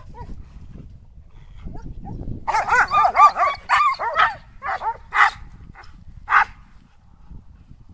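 Dogs barking and yelping in a dominance scuffle: a quick run of high-pitched barks and yelps lasting a couple of seconds, then four single sharp barks. The scuffle is posturing, not a real fight.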